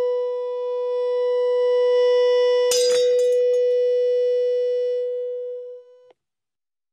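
A loudspeaker, driven by a signal generator, plays a loud steady tone set to the wine glass's resonant frequency. About three seconds in, the glass shatters with a sharp crash and a few clinks of falling pieces. The tone carries on, then fades and stops about six seconds in.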